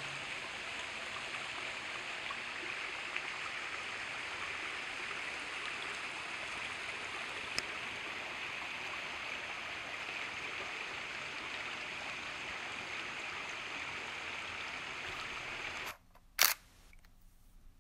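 Water from a small rocky creek running and trickling over stones, a steady hiss. About sixteen seconds in it cuts off abruptly, and a single sharp click follows.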